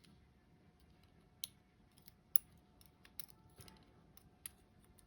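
Scattered light clicks and taps of small pins and tools being handled while the driver pins are taken out of a Dom IX 5KG dimple lock during disassembly; the sharpest click comes about two and a half seconds in.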